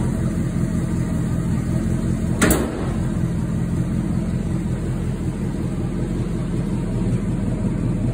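1963 Chevrolet Impala's all-original, never-rebuilt V8 idling steadily, with one sharp knock about two and a half seconds in.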